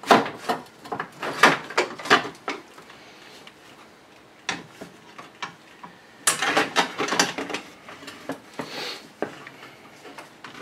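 A loose metal bracket over the radiator support clanking and rattling as it is worked free and lifted off by hand: a cluster of sharp metallic knocks, a few single knocks, then a second cluster.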